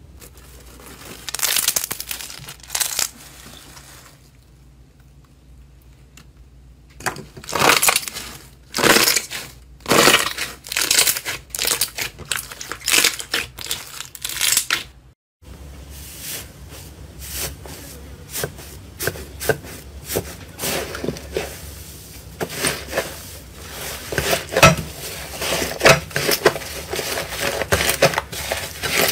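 Hands pressing and squishing slime, making sticky crackling and popping in separate bursts. After a short break about halfway, a second slime gives denser, quicker crackling.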